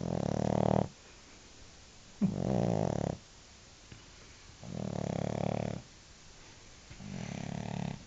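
French bulldog snoring in its sleep: four snores about two seconds apart, each lasting about a second.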